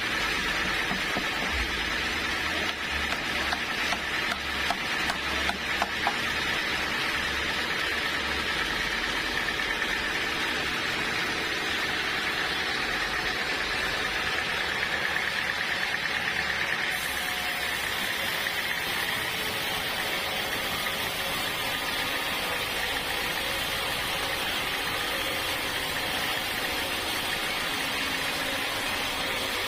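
Sawmill running steadily as it saws a dense acacia log, with a continuous mechanical whine and hiss. Light knocks come in the first few seconds, and the tone shifts a little just past halfway.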